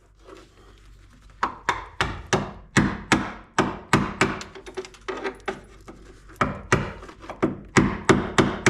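Repeated hammer blows on sheet steel, knocking off the leftover pieces of a rusted floor pan, about three strikes a second. They thin out in the middle and come back faster near the end.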